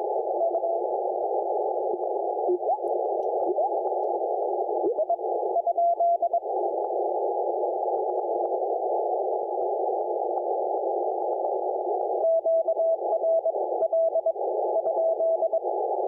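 Icom IC-7610 receiver audio through a narrow 500 Hz CW filter: a steady hiss of band noise, with a weak Morse code signal just above the noise floor, its tone keying in dots and dashes near the start, around six seconds and again from about twelve to fifteen seconds. Between about three and five seconds, brief tones slide in pitch as the receiver is tuned up the band.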